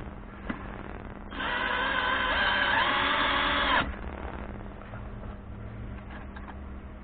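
DEKO DKCD20FU-Li 20 V cordless drill-driver motor running for about two and a half seconds, starting a little over a second in and stopping abruptly. Its whine shifts slightly in pitch midway. A small click comes shortly before it starts.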